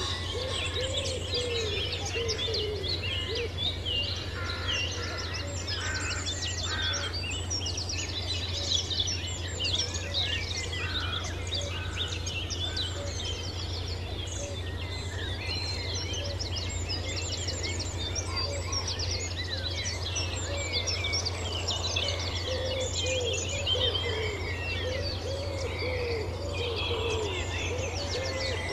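Many birds chirping and singing at once in a countryside soundscape, with a lower repeated call that comes and goes, over a steady low hum.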